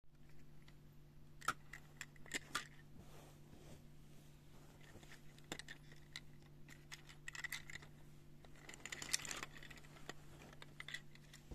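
Scattered light clicks and short clinking rattles of small toy locomotive and car models being handled and moved by hand, busiest about a quarter of the way in and again near the end, over a steady low hum.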